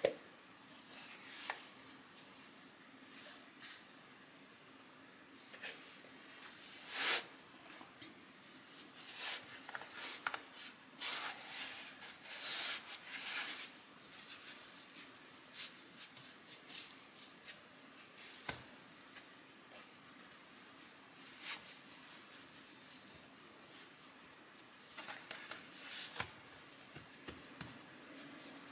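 Hands working soft raisin bread dough on a floured wooden board: quiet, irregular rubbing, pressing and patting, with one brief knock at the very start.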